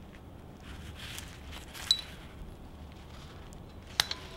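Leather work gloves rustling as they handle small plasma-cut steel pieces, with a sharp metallic clink about two seconds in and another near the end as the pieces knock together.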